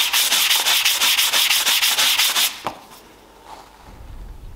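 Abrasive sanding sponge scrubbed rapidly back and forth over the metal leg of an old hand-forged drawing compass, cleaning off rust, in quick even strokes. The strokes stop about two and a half seconds in.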